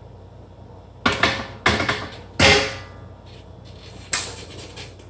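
A barbell bench press set with loaded plates: a run of sudden loud knocks, three close together about a second in and one more near four seconds in.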